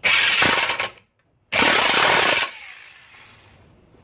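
Impact wrench hammering in two bursts of about a second each, running down a rear hub axle nut.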